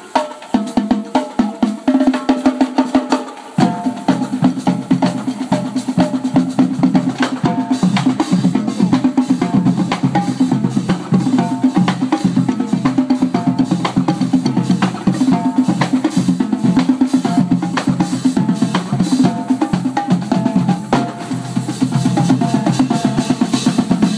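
Marching drumline playing a fast, continuous cadence on snares, pitched tenor drums and bass drums.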